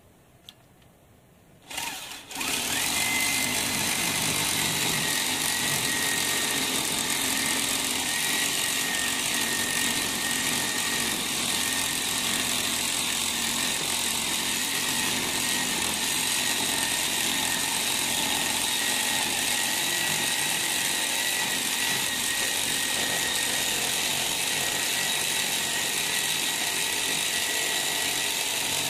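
Electric drill driving a homemade reciprocating-saw attachment, its blade sawing through a wooden board. It starts about two seconds in and runs steadily, with a constant high whine over the noise of the cut.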